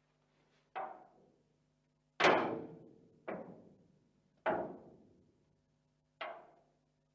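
Corrugated iron sheet being flexed slowly, giving five metallic pops and bangs spaced about a second or more apart, each ringing briefly as it dies away. The bang about two seconds in is the loudest.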